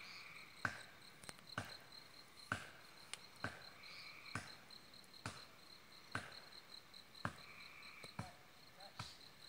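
Hatchet strokes chopping into a pine trunk, a sharp knock about once a second, over crickets chirping steadily.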